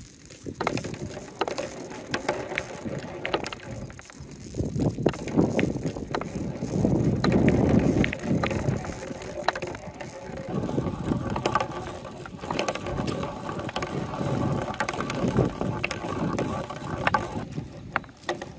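Plastic balls rolling down a long corrugated plastic hose: a continuous rattling rumble with scattered clicks that swells and fades. From about ten seconds in, a faint steady ringing tone rides along with it.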